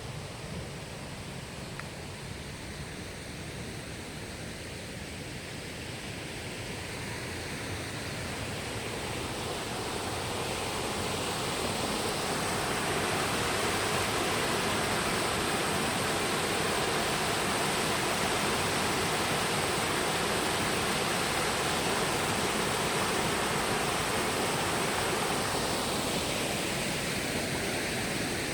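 A stream running full after rain, a steady rushing of water that grows louder about a third of the way in, then holds steady.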